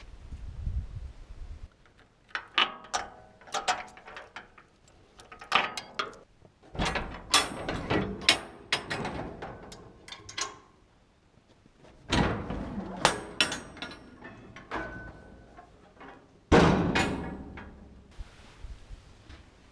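Steel tool boxes being handled and moved: a run of metal clanks, rattles and thuds in irregular clusters, some hits ringing briefly, with the loudest thud about three quarters of the way through.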